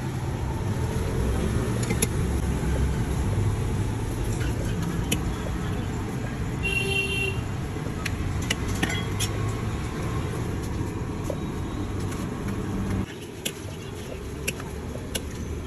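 Roadside street-food stall ambience: steady traffic noise, with scattered clinks of a steel ladle against a pot and plates, and a short horn toot about seven seconds in. The background drops quieter about thirteen seconds in.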